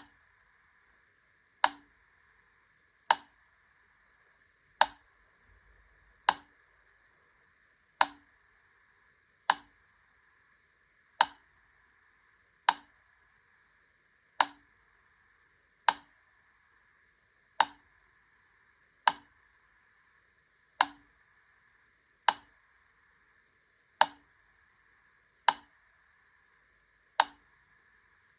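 Wittner Taktell Piccolo mechanical metronome ticking at a slow tempo, about one sharp tick every one and a half seconds, with a faint steady hiss underneath. The gaps alternate slightly shorter and longer.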